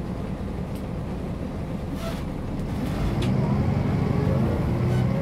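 MAN NG 262 articulated bus's diesel engine running, its note rising and growing louder about three seconds in.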